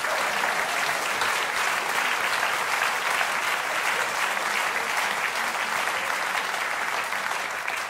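A large audience applauding steadily in a theatre: a dense run of many hands clapping that dies away near the end.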